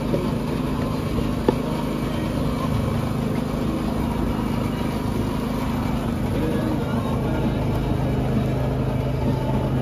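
Steady low hum of a running vehicle engine, with one sharp click about one and a half seconds in.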